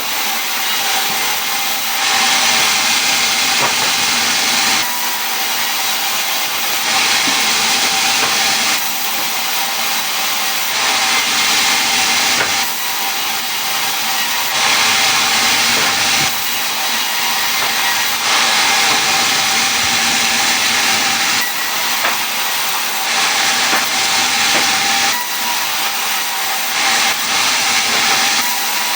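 Wood being sawn: a continuous hiss that swells and eases every couple of seconds.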